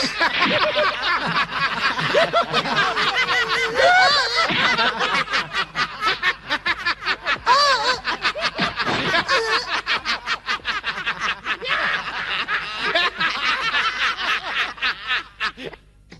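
A group of men laughing together at length, many voices overlapping in chuckles and guffaws, mocking two newcomers. The laughter cuts off suddenly near the end.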